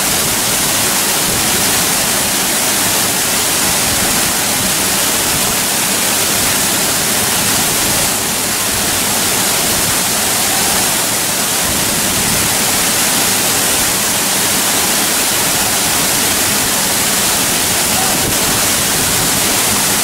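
Steady, even rush of a tall single-drop waterfall heard at close range at its foot, a constant hiss of falling water with no breaks.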